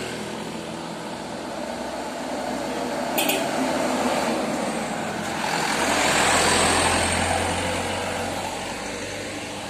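A light cab-over truck drives past close by: engine and tyre noise swell to a peak about six to seven seconds in, then fade. A short sharp click sounds about three seconds in.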